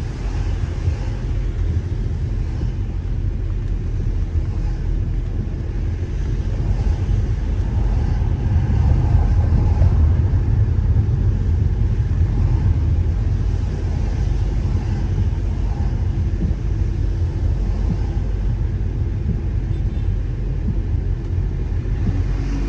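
Steady low rumble of a car driving on a wet road, heard from inside the cabin, a little louder around the middle.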